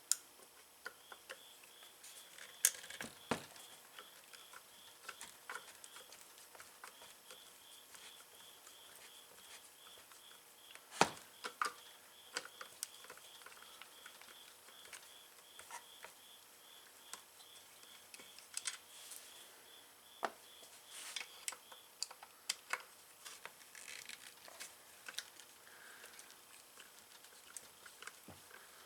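Small screws and metal parts clicking and clattering, with a few louder knocks, as someone sorts through them by hand. A faint high-pitched pulsing, about four pulses a second, runs in the background for most of it and stops a few seconds before the end.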